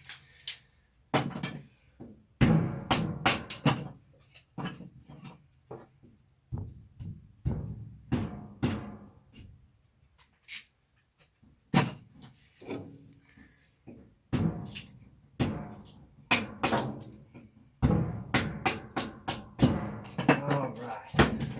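Irregular wooden knocks and clatter of dry kindling sticks being handled, split and laid for a fire in a wood cook stove, coming in quick clusters with short pauses between.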